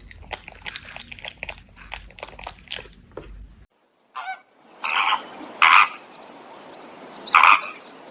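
Quick crisp clicks and crunching, like an animal chewing, for the first few seconds; then, after a short break, an animal gives four loud, short calls.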